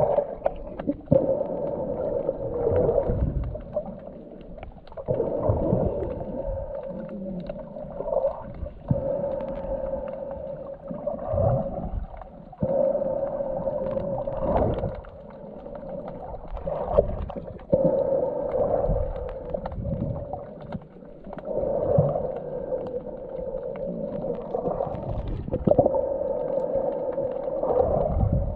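Muffled underwater sound picked up by a submerged camera: a steady droning tone that swells and fades every few seconds, with low thumps.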